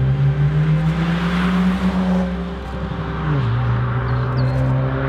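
2017 Honda Civic Si Coupe with an HKS Hi-Power cat-back exhaust driving by, its turbocharged 1.5-litre four-cylinder exhaust note rising slightly, then dropping sharply in pitch about three seconds in and holding steady.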